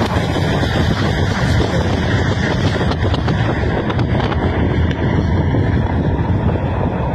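Steady road and wind noise of a moving car, heaviest in the low end, with wind buffeting the microphone.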